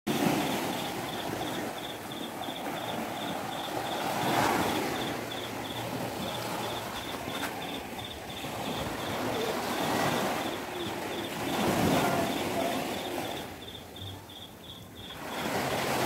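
Small sea waves breaking and washing up a sandy beach, the surf swelling and falling back every few seconds, dropping lower shortly before the end. A faint high-pitched pulse repeats about three times a second behind it.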